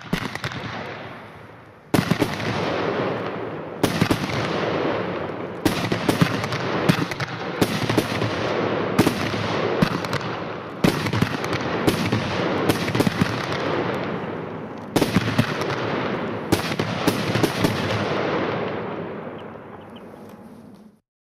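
Weco Razorlight 10-shot fan salvo battery firing its effects: a long series of loud bangs, roughly one a second and sometimes several in quick succession, over continuous crackling. It dies away near the end.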